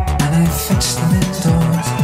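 Music with a fast drum beat: deep bass hits that each drop in pitch, over sustained synth-like tones.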